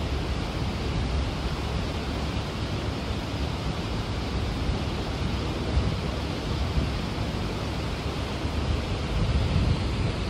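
Steady rush of wind across the microphone mixed with sea noise on the deck of a motor yacht under way.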